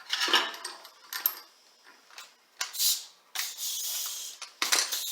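Steel pieces of a wheel bearing press/puller tool clinking and knocking as they are fitted to the hub, followed from a little past halfway by about a second of steady high hiss.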